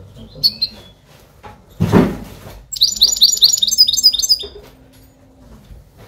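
A caged finch singing: a brief chirp, then a fast twittering phrase of many high notes from about three to four and a half seconds in. A short loud bump about two seconds in.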